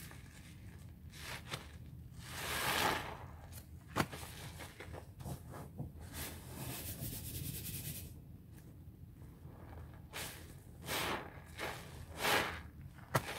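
Wet, soapy sponges squeezed and worked in a sink of sudsy water, squelching and sloshing in several separate squeezes, with a couple of sharp clicks.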